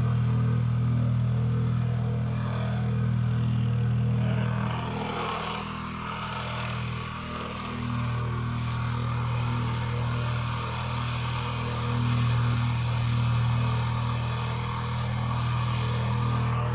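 Plate compactor's engine running steadily, with a slight dip in level for a few seconds near the middle.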